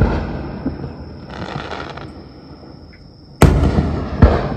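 Aerial fireworks bursting. The rumble of one burst fades, a fainter burst follows about a second and a half in, then a sudden loud boom near the end with a second sharp bang right after it.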